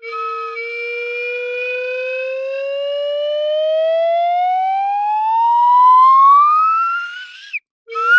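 Slide whistle playing one long, slow upward slide: the note holds low for a moment, then rises steadily and grows louder for about seven seconds before cutting off. A new, quicker upward slide starts just at the end.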